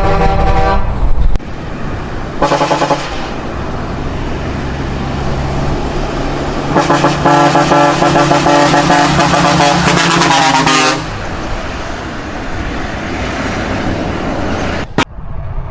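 Heavy trucks sounding their horns: a blast that cuts off about a second in, a short toot near three seconds, then a long horn blast from about seven to eleven seconds. Truck engine and traffic rumble runs between the blasts.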